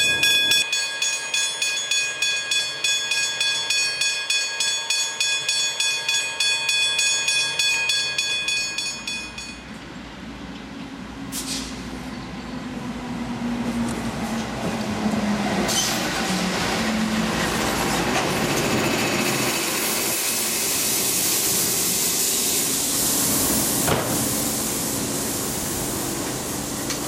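Machinery at a work train loading concrete sleepers: a hum with several steady high whines, pulsing about twice a second, for the first nine seconds or so. It then changes abruptly to a diesel locomotive hauling a passenger train into a station. The engine is heard first, then the carriages rolling past with a rising rushing hiss and a sharp click near the end.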